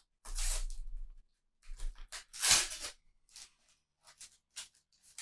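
Panini sticker packets and stickers being handled: two longer crackling rustles in the first three seconds, the second loudest, then a few short crisp flicks as stickers are leafed through.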